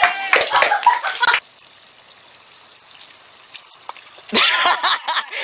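Shrieking and laughter from young people, cut off a little over a second in by about three seconds of faint hiss, then starting again loudly near the end.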